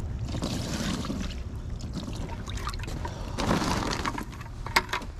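Water poured and splashed over a landed carp, in uneven swells, with a few sharp handling clicks near the end.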